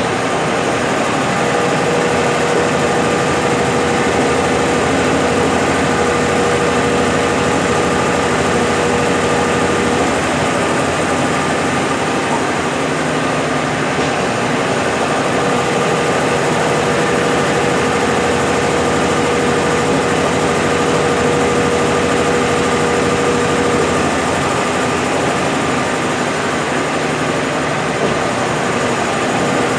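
Brastemp BWL11 11 kg washing machine in its final spin, drum spinning a load of wet rugs: a steady, loud motor-and-drum hum, with a thin whine that comes in for several seconds at a time, twice.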